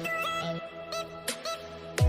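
Background music: an electronic track with steady held notes, a short melodic line and percussive hits.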